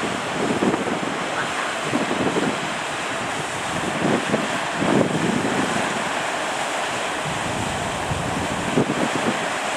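Surf breaking and rushing at a river-mouth shore, with wind buffeting the microphone in irregular gusts.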